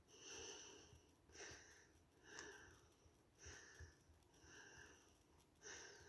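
Table knife spreading margarine onto brioche bun halves: soft scraping strokes, about one a second.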